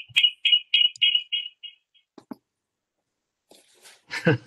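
A weird, high-pitched pulsing chirp, about four pulses a second, coming over a video call from a phone dial-in participant's line, which the host puts down to that caller's bad reception; it fades out a little under two seconds in, when that caller is muted. A couple of faint clicks and a short low sound follow near the end.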